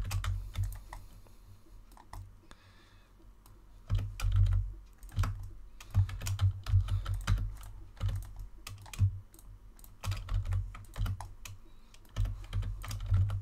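Computer keyboard and mouse clicking at an irregular pace, each click carrying a dull thump through the desk. Sparse for the first few seconds, then busier from about four seconds in.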